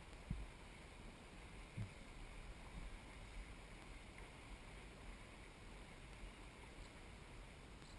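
Very quiet sound of a kayak drifting on calm water: a faint steady hiss of water and light wind on the microphone, with two soft low knocks about a third of a second and nearly two seconds in.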